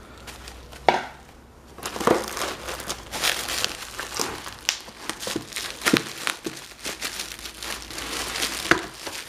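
Plastic bubble wrap crinkling and crackling irregularly as hands grip and shift a wrapped globe in a cardboard box, with a brief lull about a second in.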